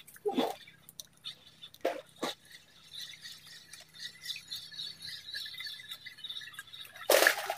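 A hooked toman (giant snakehead) splashing at the water's surface on a fishing line, in a few short splashes with the loudest near the end. A steady high chirring runs behind it in the middle.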